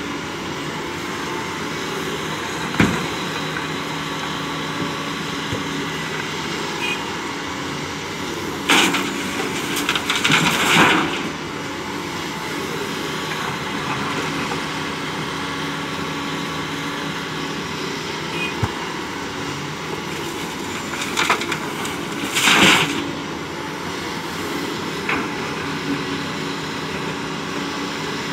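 Doosan crawler excavator's diesel engine running steadily, with a sharp knock about three seconds in. Twice, about nine and twenty-one seconds in, a bucketload of sand and stones crashes and rattles into the tipper truck's steel bed for a couple of seconds.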